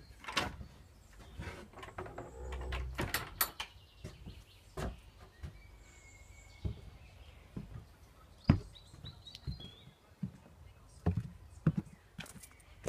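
Irregular footsteps and knocks on wooden boards, then on the path, with a sharp thump about eight and a half seconds in. Faint birdsong chirps in the background.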